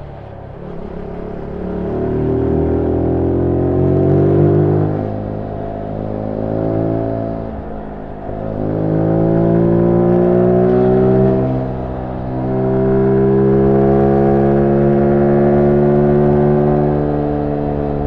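Zontes U1 125's single-cylinder engine through its stock exhaust, heard on board while riding. The revs climb under throttle, drop back briefly and climb again about three times, then hold fairly steady for several seconds before easing off near the end.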